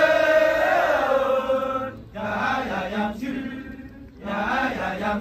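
Kecak chorus of many men chanting together. A long held, wavering phrase comes first, then two shorter phrases, each set off by a brief pause.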